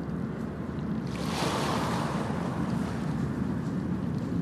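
Steady rushing noise over a low rumble, like surf or wind, laid under a title card. It swells about a second in and then eases back.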